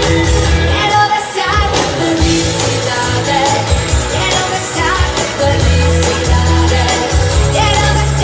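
A woman singing a pop song over an amplified backing track with a steady bass beat.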